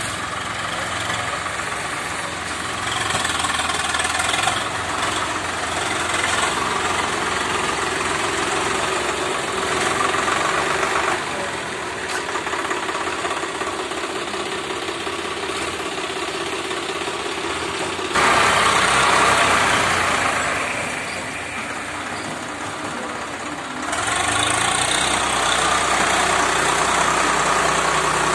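Swaraj 744 FE tractor's three-cylinder diesel engine running steadily under load while pulling a loaded trolley through mud. It becomes suddenly louder about two-thirds of the way in, eases off, then rises again a few seconds before the end.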